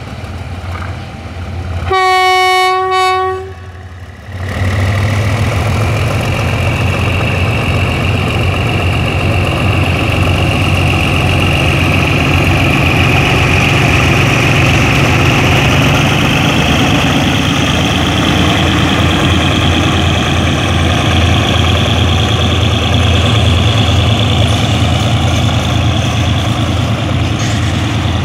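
Thai State Railway GE diesel-electric locomotive No. 4034 sounds one horn blast of about a second and a half, about two seconds in. It then runs loud under power as it hauls the oil tank train past, with a faint whine slowly rising in pitch and the rumble of the tank wagons rolling by.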